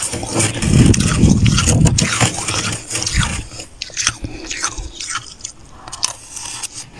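Metal spoon scraping and scooping into packed freezer frost: heavy crunchy scraping for the first couple of seconds, then quieter crisp crackles of the frost.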